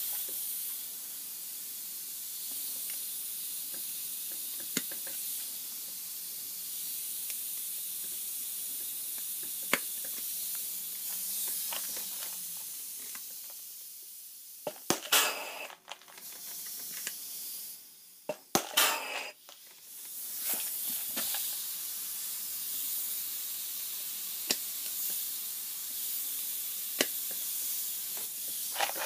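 Steady hiss of compressed air from a pneumatic rivet gun pulling Avex pop rivets through aluminium sheet. Two louder bursts come about halfway through as rivets are pulled and their mandrels snap, with a few sharp clicks scattered through.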